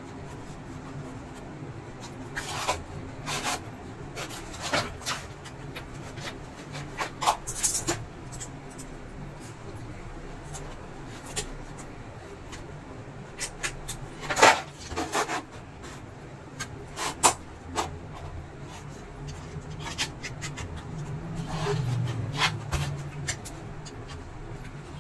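Hands and a screwdriver working at the plastic body frame of an induction cooker's glass top: irregular scrapes, rubs and sharp plastic clicks as the frame is pried and worked along its edge.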